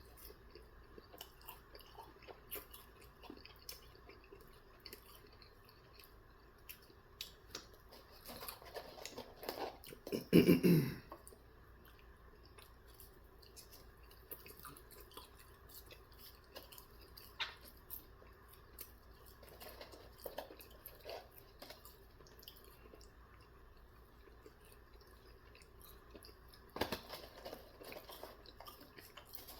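Close-up chewing and small wet mouth clicks of someone eating chicken nuggets and fries. A louder, brief sound with a pitch to it comes about ten seconds in, and there is another flurry of eating noise near the end.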